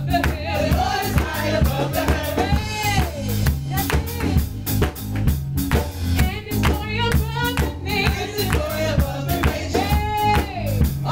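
Live gospel praise song: singers on microphones over a band with drum kit and a steady bass line, the voice holding a long note about two and a half seconds in and again near the end.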